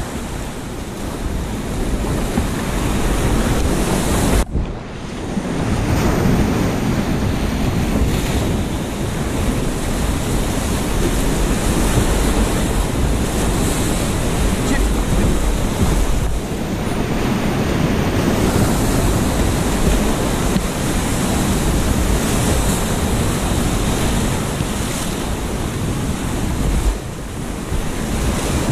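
Whitewater rapids rushing and splashing right at a kayak-mounted camera, water and spray washing over the microphone. The sound drops out and goes muffled for a moment about four seconds in.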